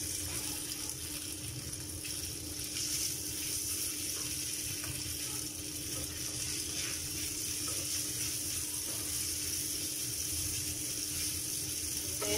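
Minced pork sizzling in a frying pan with a steady hiss, while a spatula stirs and scrapes it in light, scattered clicks; a steady low hum runs underneath.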